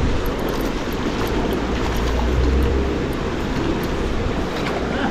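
Steady rush of river water over a shallow rocky riffle, with wind buffeting the microphone in a low rumble that swells about two seconds in.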